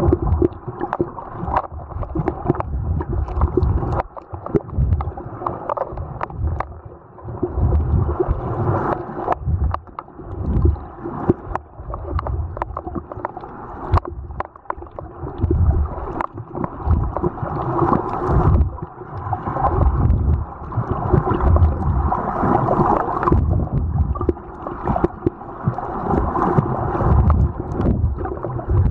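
Muffled water sloshing and gurgling picked up by a camera held underwater, with irregular low swells of noise and little above the low-middle range.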